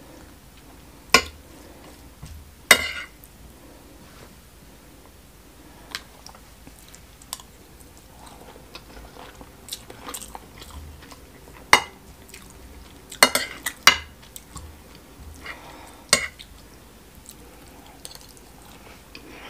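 Metal spoon clinking and scraping against a ceramic plate as rice and fish stew are scooped up, in several sharp, scattered clinks, with close-up chewing between them.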